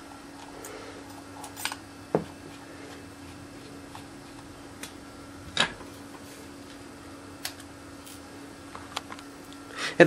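Small clicks and taps as a plastic camcorder body and a tiny screwdriver are handled during disassembly. The sharpest click comes about five and a half seconds in, and a steady hum runs underneath.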